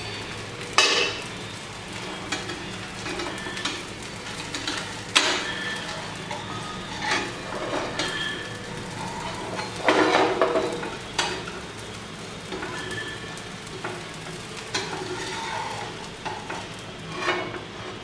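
Spatula scraping and tapping against a nonstick tawa as a pearl millet dosa is loosened and flipped, with a few sharp knocks (the loudest about a second in, about five seconds in and a cluster near ten seconds), over the faint sizzle of the cooking dosa.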